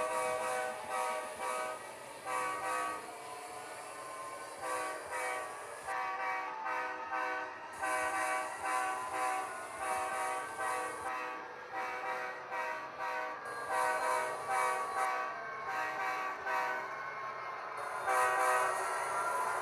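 HO scale model train's sound-equipped locomotive sounding its horn, a chord of several notes played through a small speaker in a long run of short blasts with brief pauses, over the faint running noise of the train on its track.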